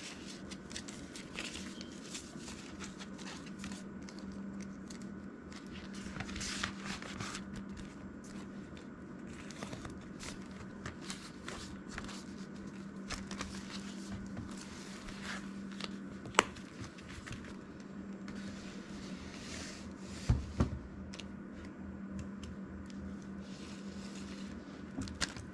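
Paper banknotes and plastic binder envelopes rustling and crinkling as cash is handled and the binder's pages are turned, with scattered small clicks, one sharp click past halfway and a couple of thumps about three quarters of the way through. A steady low hum runs underneath.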